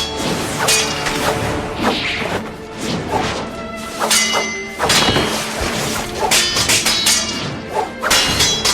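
Anime-style fight sound effects in quick succession: hits, thuds and whooshes, with several sword clashes that ring on briefly after the strike.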